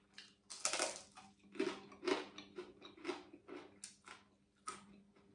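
Close-up crunchy chewing of deep-fried sun-dried fish: a string of irregular crisp crunches about every half second, over a faint steady hum.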